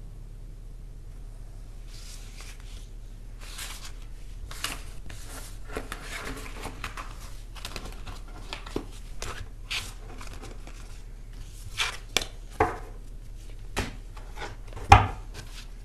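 Tarot cards being shuffled and handled: irregular soft riffles and taps starting about two seconds in, growing busier, with a sharp knock near the end.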